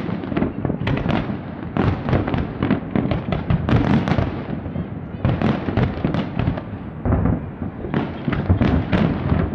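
Fireworks display: volleys of rapid sharp bangs and crackling shell bursts come in clusters every second or two, over a continuous low rumble of booms.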